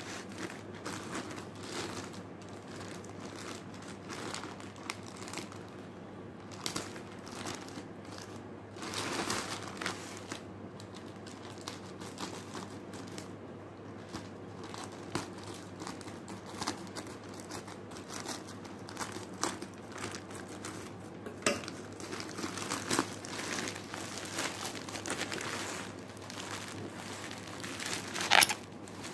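Plastic courier mailer bag crinkling and rustling as it is handled and torn open by hand, with scattered sharp crackles. Near the end the bubble wrap around the plastic bottles rustles, and a brief sharp crackle is the loudest sound.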